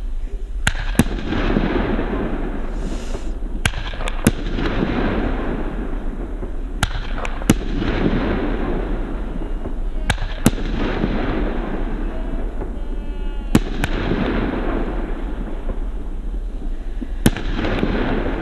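Consumer fireworks battery (Argento 'Zirkonia', category F2) firing: sharp bangs, mostly in pairs, come roughly every three seconds over a continuous hissing crackle.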